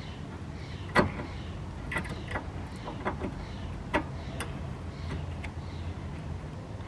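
Sharp metal clicks and knocks, about seven scattered ones, the loudest about a second in, as new brake pads are handled and seated in the caliper bracket's clips, over a low steady hum.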